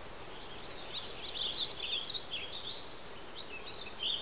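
Village weaver chattering: quick runs of short, sharp chirps, one burst about a second in and another near the end, over a faint steady hiss.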